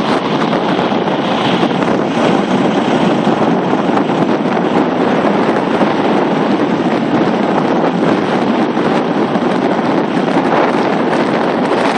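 Strong thunderstorm wind buffeting the microphone: a loud, steady rushing noise.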